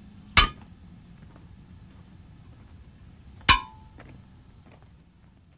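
Wheel tapper's hammer striking a railway wheel twice, about three seconds apart, each blow a sharp metallic clang with a short ring, testing the wheel for defects with the brakes applied.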